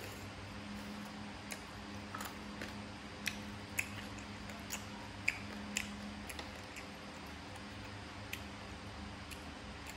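Mouth sounds of someone chewing green papaya salad and grilled pork: a scatter of small wet clicks and smacks, most of them between about one and six seconds in, over a steady low hum.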